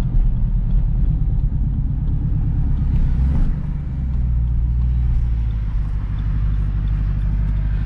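Jeep SRT's V8 with a fully straight-piped exhaust, running while driving. About three and a half seconds in it eases off, then settles into a steadier, slightly quieter drone.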